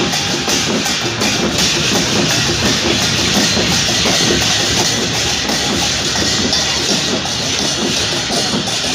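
Loud, continuous din of a large crowd, many voices shouting at once, with music mixed in.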